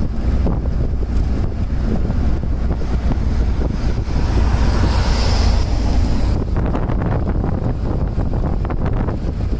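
Wind buffeting the microphone over the low, steady road rumble of a vehicle driving on a paved road. A louder rush swells about halfway through as an oncoming minivan passes.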